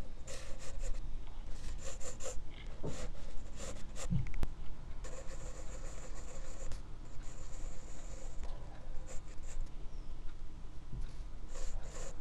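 Pencil sketching on drawing paper: repeated short scratchy strokes, picked up close by a microphone clipped near the drawing hand, with one soft knock about four seconds in.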